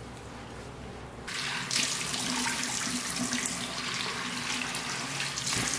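A bathroom sink tap running while water is splashed onto a face by hand to rinse it. The running water gets clearly louder about a second in.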